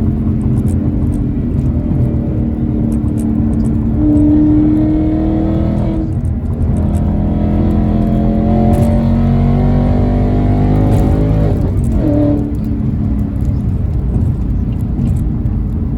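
A car's loud V8 engine and exhaust pulling under acceleration, running better after a cylinder-8 misfire repair. The engine note climbs about four seconds in, dips briefly at a gear change, climbs again for about five seconds, then falls away sharply just after twelve seconds as the throttle closes or the car shifts up.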